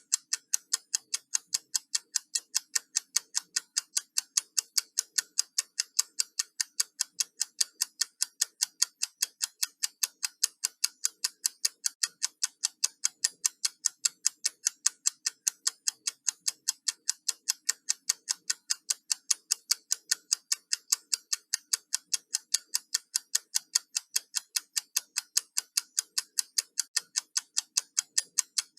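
Countdown timer ticking: fast, sharp, evenly spaced clock ticks, several a second, running without change.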